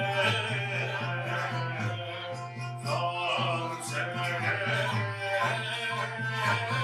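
Live Mevlevi Sufi ceremonial music from a small seated ensemble: an evenly repeating low drum pattern under a melodic line.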